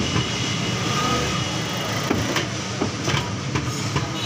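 A steady, engine-like rumble of machinery, with a few light metallic clicks of a T-handle box spanner turning a bolt on a loader rickshaw's engine.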